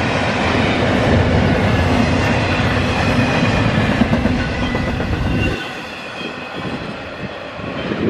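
Double-stack intermodal freight train's loaded well cars rolling past close by: steady wheel rumble and clatter on the rails, with faint steady high tones over it. About five and a half seconds in the last car goes by and the sound drops off sharply as the train moves away.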